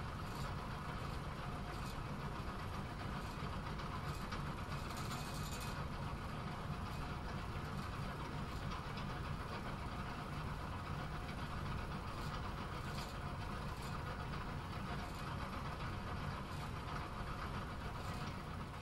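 Bowling alley ambience: a steady rumble, typical of balls rolling down the lanes, with faint clatters of pins now and then.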